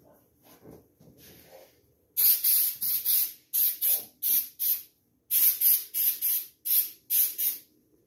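Hand trigger spray bottle squirting onto artificial Christmas tree branches during flocking. About fifteen quick squirts come in groups of three or four, starting about two seconds in.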